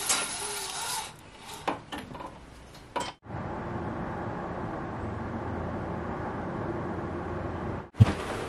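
Light clicks and rubbing of a window handle and frame as a window is opened, then a steady outdoor background hush heard through the open window. Near the end there is one sharp, loud thump as a duvet is shaken out.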